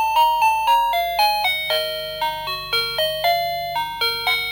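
TECKNET wireless doorbell chime unit playing one of its electronic melody tunes: a quick run of clean beeping notes, about four a second, each ringing briefly before the next.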